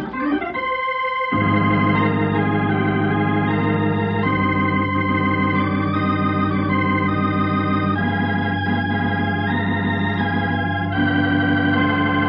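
Organ playing a scene-change music bridge in a radio drama. A held note is joined about a second in by full chords with a bass, which then shift slowly every few seconds.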